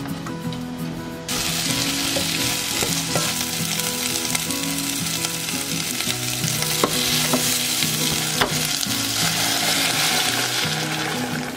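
Diced potatoes and onion sizzling in hot oil in a pot as they are stir-fried with a silicone spatula. The sizzle comes up suddenly about a second in and stays steady, with a few sharp clicks.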